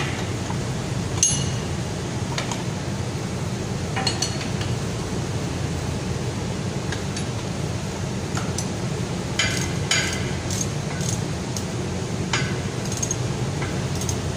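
Steel wrenches clinking against the nuts and bolts of a 4-inch pipe flange as the flange bolts are turned: about a dozen sharp metallic clinks at irregular intervals, some in quick clusters. A steady low hum runs underneath.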